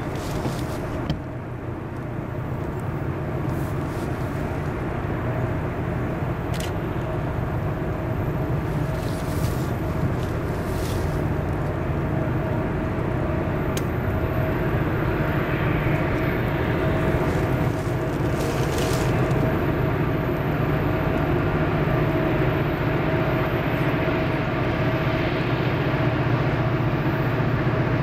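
Distant diesel freight locomotive engines running with a steady low drone, slowly growing louder as the train approaches. There is a brief break about a second in.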